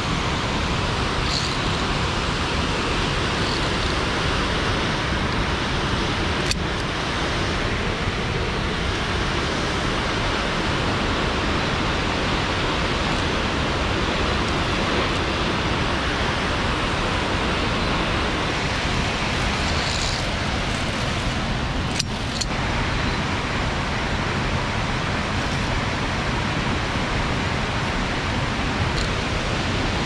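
Steady, even roar of the Stuibenfall waterfall's falling water, with a couple of sharp clicks.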